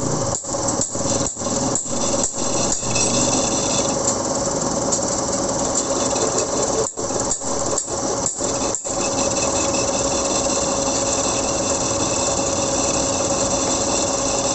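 Metal lathe turning a Yamaha YTX125 wheel hub while the cutting tool bores out its aluminium-welded bearing seat, truing up a seat that had worn loose. The machining noise runs steadily with a constant tone, broken by short regular dips about twice a second for the first few seconds and again about seven to nine seconds in.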